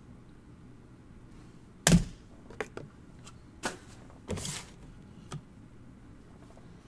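Hands handling a trading card in a plastic holder and a cardboard card box on a tabletop: one solid thunk about two seconds in, then a few light clicks and taps and a brief scuffing slide past halfway.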